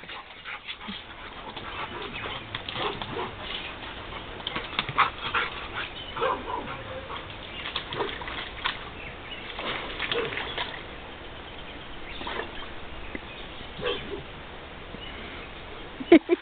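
Dogs playing in mud, a blue pit bull puppy among them: a string of short, scattered dog sounds and scuffles.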